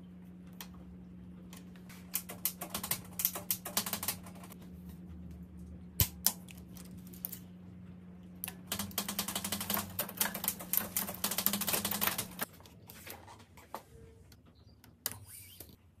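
Rapid mechanical clicking in two long runs, the second the longer, with a few single sharp clicks between them, over a steady low hum that cuts off about twelve seconds in.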